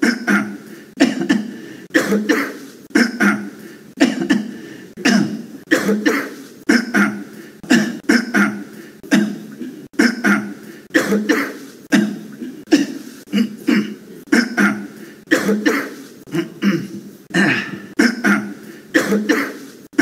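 A man's cough, French President Emmanuel Macron's, sounding over and over at an even pace of about one cough a second.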